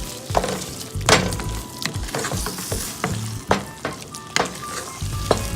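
A spoon scraping and knocking against a pan while stirring a frying onion, tomato and green chilli masala, with a light sizzle under it. The knocks come irregularly, about once a second. The masala is being cooked until its raw smell is gone.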